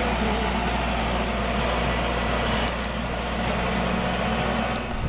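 Compact farm tractor's diesel engine running steadily as the tractor drives along a field row.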